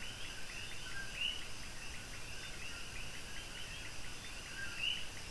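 Faint background chirping, several short high chirps a second with a few longer ones among them, over a steady hiss.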